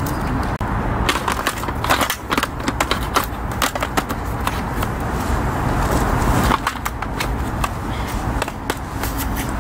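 Wooden slats of a roll-top camping table clattering and knocking against each other as the top is rolled up and lifted off its frame, busiest in the first half and sparser near the end. Under it runs a steady hum of traffic on a nearby highway.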